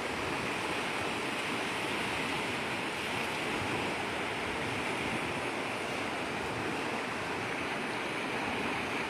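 Steady rushing of a swollen river in flood, its fast brown water running past the bank.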